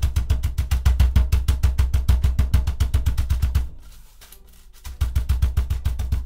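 Background music: a rapid, driving drum beat over heavy bass, dropping out for about a second partway through before starting again.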